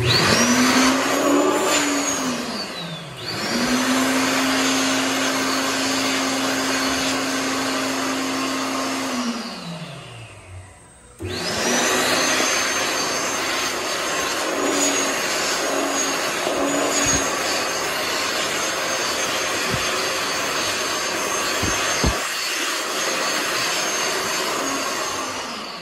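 World Dryer SLIMdri L-973A stainless-steel hand dryer blowing: a loud rush of air with a steady high motor whine, started by a hand under its sensor. The motor dips and recovers about 2 to 3 seconds in. It winds down with a falling whine around 10 seconds in, starts again abruptly about a second later, and winds down once more near the end.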